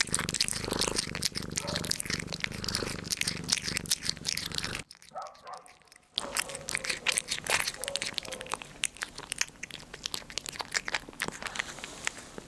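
A cat licking and chewing soft cake from a cup: many quick, close licking clicks, with a low steady purr under them for the first few seconds. The sounds break off for a moment about five seconds in, then the licking resumes.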